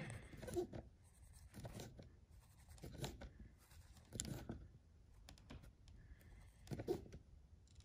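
Hand screwdriver turning an in-wall speaker's mounting screw, drawing its dog-ear clamp tight behind the drywall: faint, irregular scratchy clicks and creaks.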